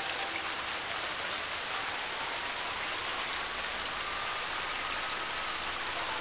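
Steady rain falling on a wet street, an even hiss. A faint tone slowly rises and falls behind it.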